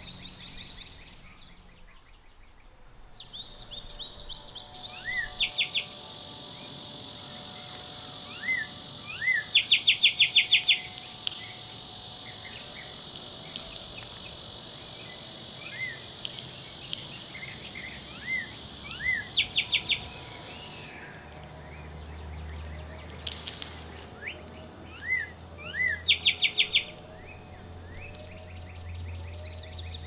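Songbirds calling around feeders: several short, fast trills and small rising chirps scattered through the clip. A steady high buzz runs through the middle and stops about two-thirds of the way in.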